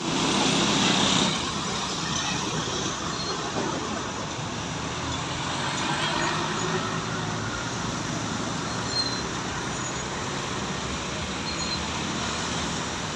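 Roadside traffic noise: a steady rush of passing vehicles on the road, a little louder in the first second or so.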